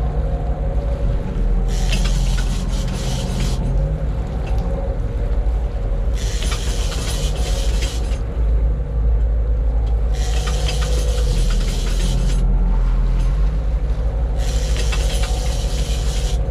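A boat engine runs steadily with a low rumble. Over it, a rushing hiss rises and falls four times, each lasting about two seconds.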